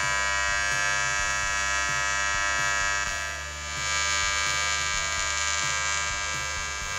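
AC TIG welding arc on aluminium, powered by a Unimig Viper 180 AC/DC inverter welder: a steady, high-pitched buzz that dips briefly about three and a half seconds in.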